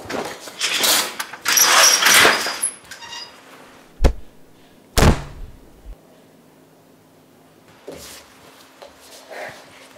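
Off-screen clattering and rustling for a couple of seconds, then two heavy, deep thuds about a second apart.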